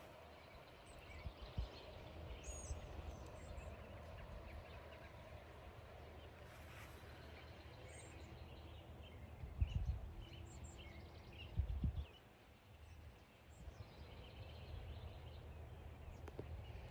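Quiet outdoor farm ambience: a low steady rumble with faint, scattered high bird chirps, and two dull thumps, about ten and twelve seconds in.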